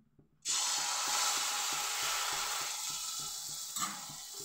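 A ladle of ripe-banana and wheat-flour malpua batter going into hot oil in a pan, sizzling loudly. The sizzle starts suddenly about half a second in and slowly dies down as the batter sets.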